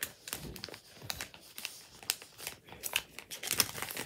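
Irregular crinkling and clicking of footy trading cards and their plastic packets being handled.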